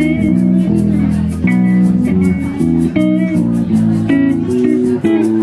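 Live band music: an amplified electric guitar playing over an electric bass guitar line, with notes held and changing every second or so.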